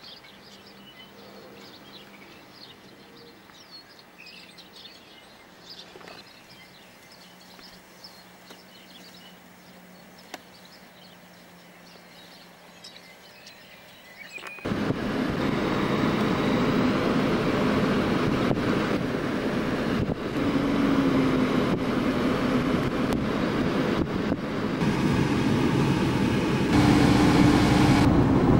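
Faint birds chirping over a low steady hum. About halfway through it cuts suddenly to the loud road and wind noise of a moving car, which runs steadily with a faint low drone.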